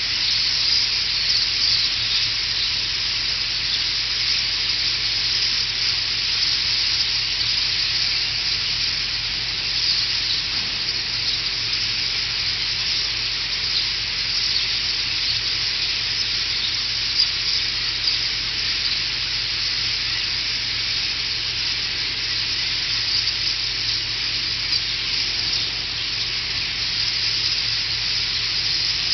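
A dense, continuous din of chattering from a flock of several thousand birds massed in one tall tree, gathering before autumn migration. No single call stands out.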